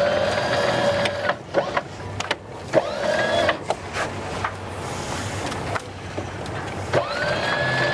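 Electric sheet winch on a Jeanneau Sun Odyssey 449 running in three short bursts as it winds in the genoa sheet to unfurl the genoa. Each time the motor whine rises quickly to a steady pitch. Between the bursts come clicks and knocks.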